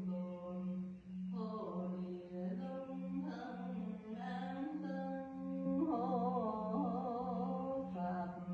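A voice chanting a slow, melodic Buddhist chant, holding and sliding between long notes with vibrato in the second half. Under it runs a steady low hum that pulses about twice a second.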